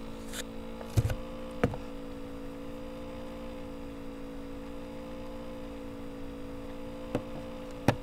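Steady electrical hum of several low tones, with a few sharp clicks and knocks from typing on a computer keyboard: about a second in, again shortly after, and twice near the end.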